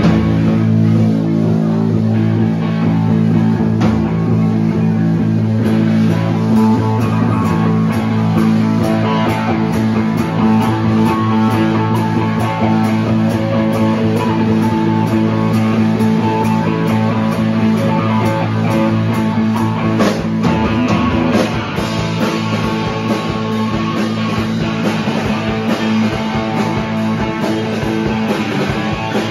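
A small rock band playing live: two electric guitars, electric bass and a drum kit.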